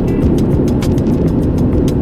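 Background music with a fast, steady beat over a heavy low end.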